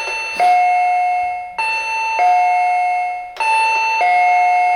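Electronic two-tone ding-dong chime from a commercial-use call chime, a higher tone followed by a lower one, repeated three times at an even pace.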